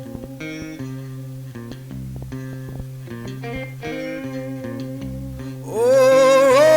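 Background music: a guitar-led song with a bass line, and a singing voice coming in near the end.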